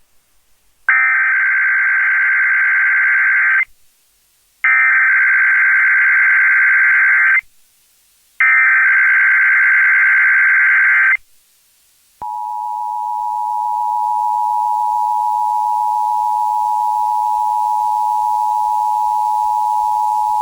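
Emergency Alert System tones: three bursts of SAME digital header data, each nearly three seconds long with about a second between them. These are followed by about eight seconds of the steady two-tone EAS attention signal, which swells up over its first two seconds. Together they mark the start of an EAS alert, here a required monthly test.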